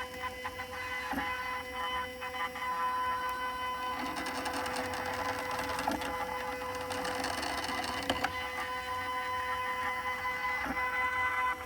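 Z-axis stepper motor of a 5-axis CNC machine driving the axis with a steady whine, and a few sharp ticks. The ticking is the sign of a Z-axis stepper motor that is not properly seated in its mount.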